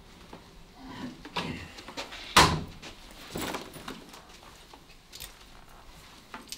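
A door bangs shut about two and a half seconds in, the loudest sound here, among a few lighter knocks and bumps.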